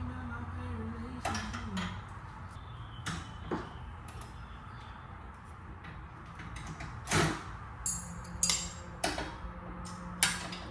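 Scattered sharp metal clanks and knocks from hand tools working on a car's front suspension parts, the loudest about seven seconds in. A low wavering tone runs under the first two seconds.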